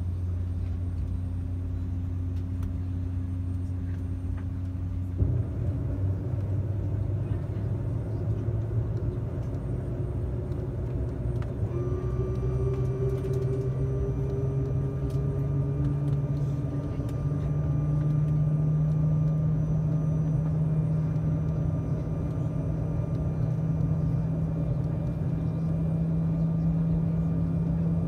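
Embraer 195 cabin with the General Electric CF34 turbofans running, a steady low hum. About five seconds in the engine tones begin to rise, climbing slowly for about thirteen seconds as the engines spool up, with a thin whine joining partway through, then they hold steady.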